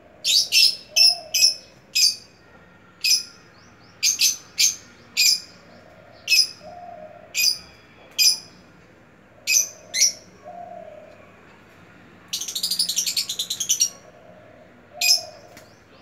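Caged lovebirds giving loud, sharp, high-pitched chirps, singly or in quick pairs, roughly one a second, with a fast chattering run of calls about twelve seconds in.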